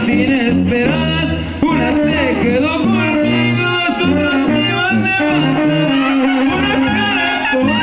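Live Mexican banda music: trumpets, trombones and sousaphone playing together over drums, the sousaphone carrying a steady bass line.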